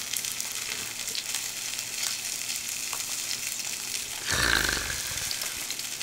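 Thick tomahawk steak sizzling steadily on an electric grill, with a brief louder, low noise about four seconds in.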